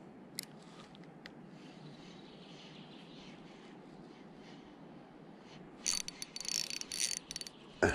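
Quiet outdoor background with two faint clicks in the first second and a half, then, about six seconds in, a run of irregular metallic clinking and rattling that stops and starts.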